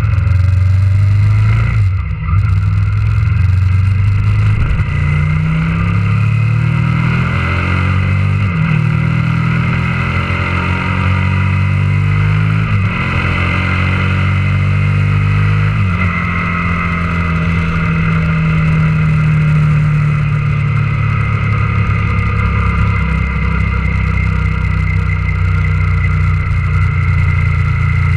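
Motorcycle engine accelerating up through the gears, close to the bike-mounted camera: the revs climb and fall back at four upshifts, then hold steady at cruising speed for the last part.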